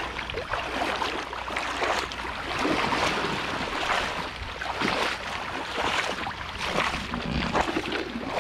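Feet splashing as people wade through shallow seawater, a short splash with each stride.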